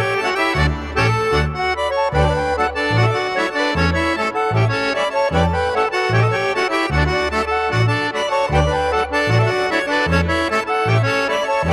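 Background music: an accordion tune in a traditional folk style, with a melody over a regular bass note about twice a second.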